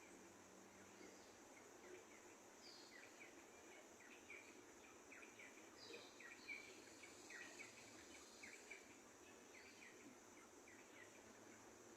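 Small birds chirping faintly: many short, quick chirps that slide down in pitch, coming thickest in the middle stretch, over a steady high-pitched hiss.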